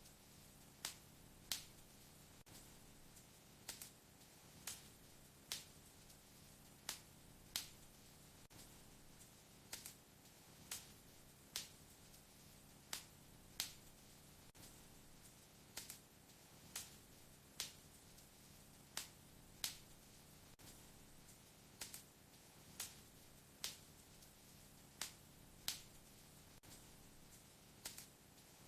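Wood fire crackling in a fireplace: sharp pops of burning wood, irregular, about one a second and sometimes two in quick succession, over a faint low background hiss.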